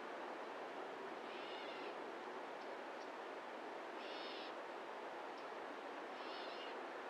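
A bird giving a short, cat-like mewing call three times, about two and a half seconds apart, over a steady background hiss.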